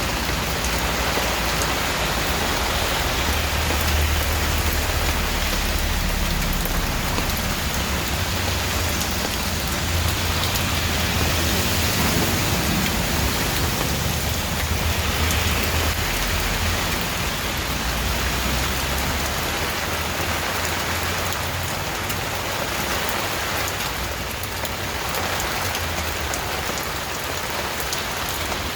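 Steady rain falling on a surface, with a low thunder rumble underneath that is strongest through the first half and then fades.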